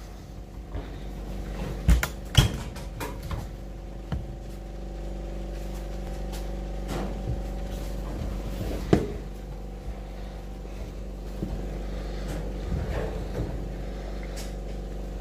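Small metal parts handled with gloved hands inside a sandblasting cabinet: scattered knocks and clicks, the sharpest about two seconds in, as a hinged metal plate and a hex nut are picked up and test-fitted on the perforated floor grate, over a steady machine hum.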